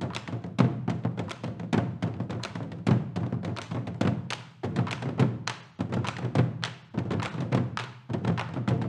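Live drumming in a fast, dense rhythm: deep drum strokes mixed with sharper, higher strikes, several a second, with a few short lulls.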